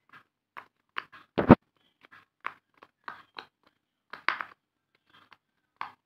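Silicone pop-it fidget toy bubbles being pressed by fingers, popping one at a time in an irregular series of soft clicks. One louder, deeper thump comes about a second and a half in.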